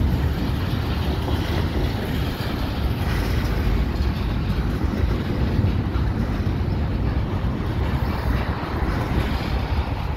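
Steady rumble of a double-stack intermodal freight train's well cars rolling past on the rails, with some wind noise on the microphone.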